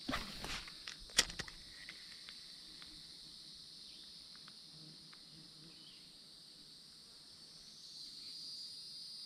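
Steady, high-pitched chorus of insects, a little louder near the end. In the first second and a half there are a few sharp clicks and rustles as a spinning rod and reel are cast.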